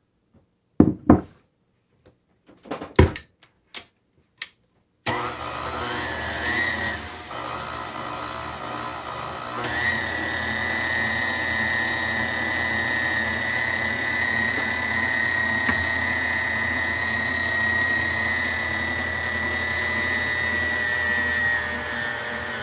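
A few knocks and clicks, then about five seconds in a KitchenAid Artisan stand mixer's motor switches on and runs steadily, mixing chocolate cake batter, with a steady high whine over the motor hum.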